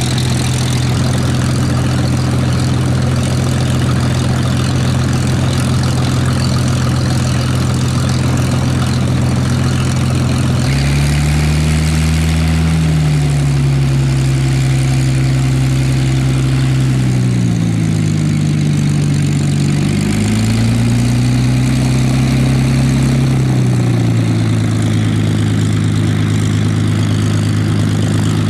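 Hawker Hurricane Mk.I's Rolls-Royce Merlin III V12 engine running on the ground, propeller turning, a loud steady drone. About ten seconds in, its pitch shifts, dipping and rising a few times before it settles steady again near the end.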